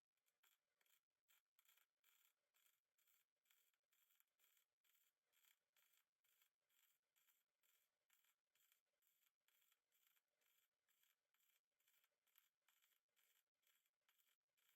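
Faint, even scraping strokes by hand, about three a second, kept up without a break.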